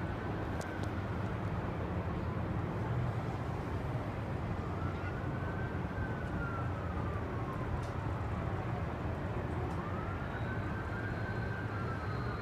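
A faint emergency-vehicle siren in a slow wail, rising and falling about every five seconds, over a steady low rumble.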